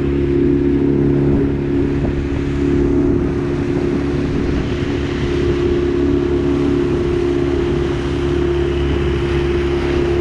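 Outboard motor on an inflatable dinghy running steadily at cruising speed, with the rush of water and wind over it.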